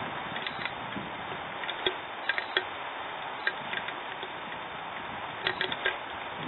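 Steady hiss of rain with about a dozen irregular sharp ticks of drops striking a hard surface close by, some in quick clusters.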